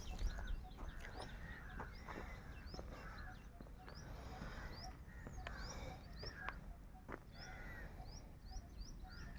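Small birds chirping: many short, high chirps repeating about twice a second, mixed with other bird calls and a few clicks over a faint low rumble.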